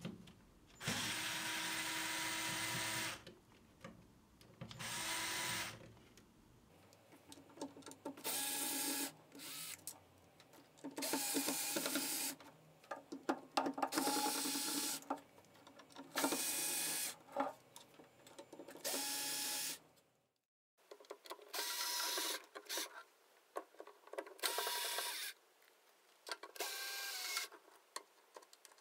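Bosch cordless screwdriver backing out the screws that hold an LED display module. It runs in about ten short spurts of one to two seconds each, with short pauses between them, and its motor whine shifts in pitch within some spurts.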